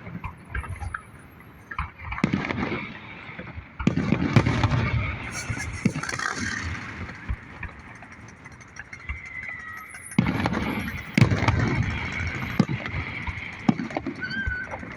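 Fireworks going off: a few sharp bangs, the loudest about 4 and 10 seconds in, each followed by a long rolling rumble.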